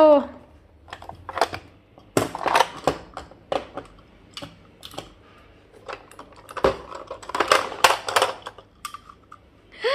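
Chunky plastic letter blocks of a Fisher-Price alphabet toy clattering and clicking against each other and the plastic tray as a child's hands pick them up and move them, in irregular bunches of knocks with short pauses between.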